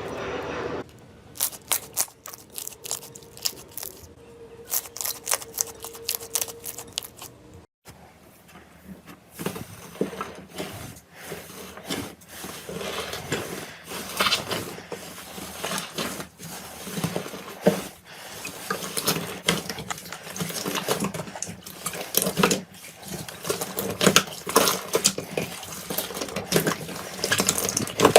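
Slime being squeezed and worked by hand: a run of irregular sticky pops and crackles, with a brief pause about eight seconds in and denser popping after it.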